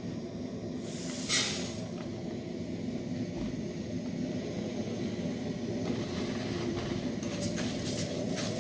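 Risotto rice hitting hot oil in a stainless-steel pan with a short sizzle about a second in, then being toasted and stirred with a wooden spoon, the grains and spoon scraping and clicking against the steel through the second half. A steady rushing noise from the lit tabletop burner runs underneath.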